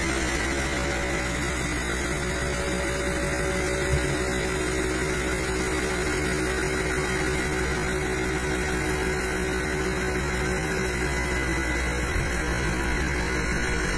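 Tracked excavator's diesel engine running steadily while the machine works, with a single knock about four seconds in.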